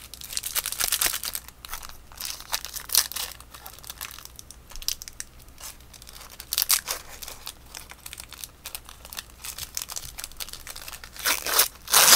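A 2012 Topps baseball card pack being torn open, the wrapper crinkling in irregular rustles that are loudest near the end.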